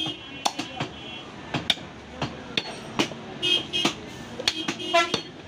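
Irregular sharp knocks of meat cleavers chopping on wooden blocks, with a couple of short vehicle-horn toots about two-thirds of the way through and again near the end.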